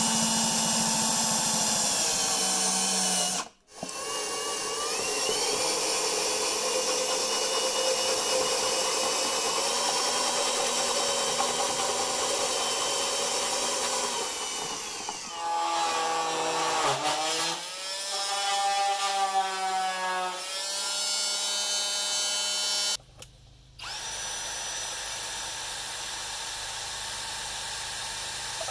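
A cordless drill with a step bit runs at speed as it bores through the wall of a plastic electrical enclosure. The motor whine stops briefly about three seconds in, and its pitch wavers up and down as the trigger is feathered partway through.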